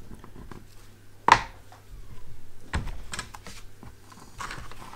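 Knocks and light clatter of hand tools being handled and set down on a wooden tabletop while flux is put on a stained glass lead joint: a sharp knock a little over a second in, another near three seconds, and small ticks between.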